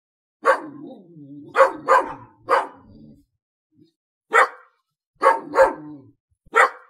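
Dog barking: about eight short, sharp barks in uneven groups, with a low drawn-out sound running under the first few.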